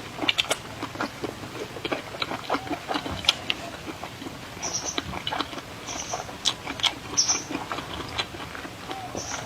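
Close-miked eating: wet chewing, lip smacks and mouth clicks of someone eating sausage and pasta, with a few short slurps.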